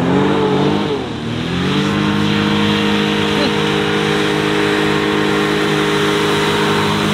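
Personal hovercraft engine and fan running at full throttle as the craft is driven up onto the sand. Its pitch dips briefly in the first second or so, then holds steady over a constant hiss.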